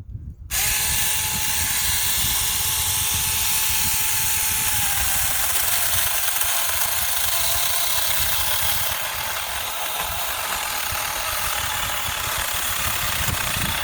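Saker 6-inch mini cordless battery chainsaw switching on about half a second in and running steadily while cutting into a small tree trunk. Its motor whine drops slightly and fades a few seconds in as the chain takes the load of the wood.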